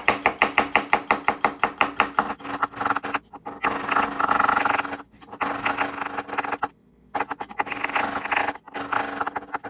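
Kitchen knife slicing garlic on a cutting board in quick, even strokes, about eight a second. After about two seconds it turns into denser, faster cutting in several runs broken by short pauses.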